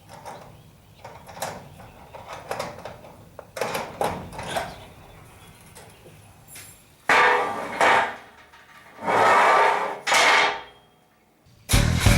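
Scattered knocks and clanks on metal, then four loud bursts of hiss from about seven seconds in, the last one tailing off.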